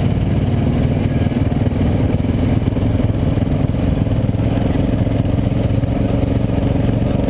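Dirt bike engine running steadily at a constant pace, with rapid, even exhaust pulses.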